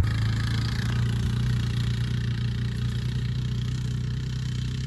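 Four-wheeler (ATV) engine running steadily at a low, even pitch, slowly growing fainter.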